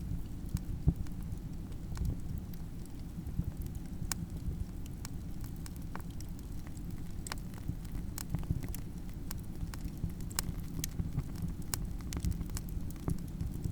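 Campfire crackling: a steady low rumble of burning with frequent sharp pops and snaps at irregular intervals.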